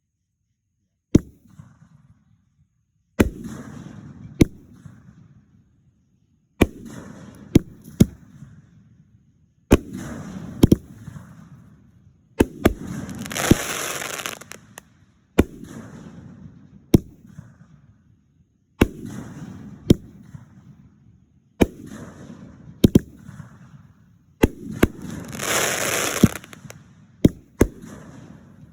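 Aerial fireworks bursting one after another, each a sharp bang trailing off in a low rumble, with dense crackling bursts around the middle and again near the end.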